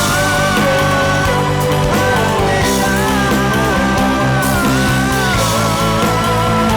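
A live band playing a rock-style song together, starting from bar 11 in rehearsal, with a wavering lead melody over a full, steady accompaniment.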